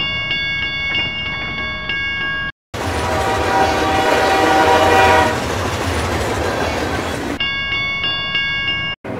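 Level-crossing warning bell ringing in quick, regular strokes, cut off about two and a half seconds in. A train then rumbles past for about four and a half seconds. The crossing bell rings again briefly near the end.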